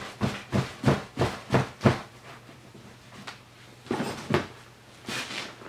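Sharp knocks on the hard plastic shell of a BMW Z3 M sport seat as it is worked loose: a quick run of six, about three a second, then a few softer knocks and rattles.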